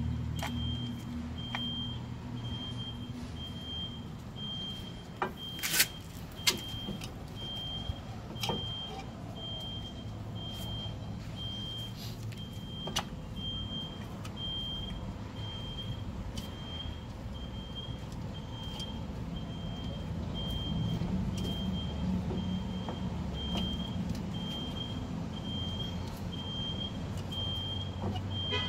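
A vehicle's reversing alarm beeping steadily, about one and a half beeps a second, over the low rumble of an idling engine. A few sharp clicks stand out about six seconds in, with fainter ones scattered throughout.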